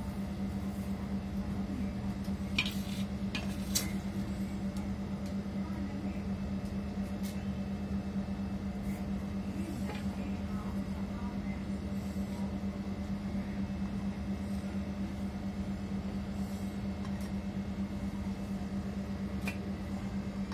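A steady low hum, with two light clicks about two and a half and three and a half seconds in.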